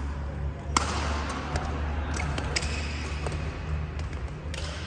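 Badminton rally: rackets striking a shuttlecock, a string of sharp hits spaced roughly half a second to a second apart, the loudest about a second in, over a steady low hum in the hall.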